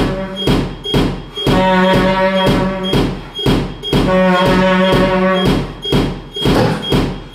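Experimental music for large saxophone and live electronics: a steady pulse of knocks about twice a second under a repeated held low reed tone that sounds twice, each time for about a second and a half.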